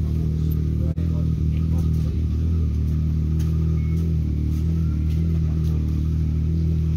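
Vehicle engine idling steadily, a low, even hum.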